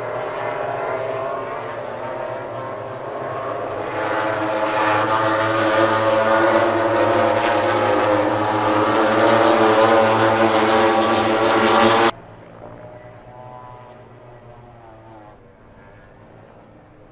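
A pack of MotoGP racing motorcycles, four-cylinder four-stroke engines at high revs, several engine notes overlapping as the bikes race past. The sound grows louder about four seconds in, then drops suddenly to a fainter engine note about twelve seconds in.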